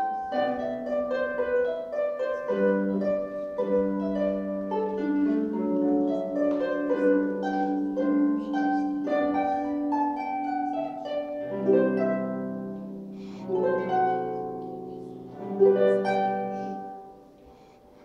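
Solo concert pedal harp playing a rondo: a quick, steady stream of plucked notes, then heavier full chords in the second half, the last one ringing away to quiet near the end.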